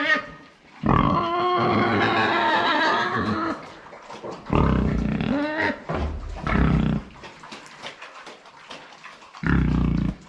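Pigs squealing loudly: one long squeal lasting about three seconds, then several shorter, deeper squeals and grunts.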